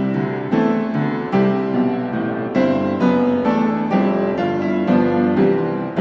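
Background piano music, single notes struck every half second or so and left to ring.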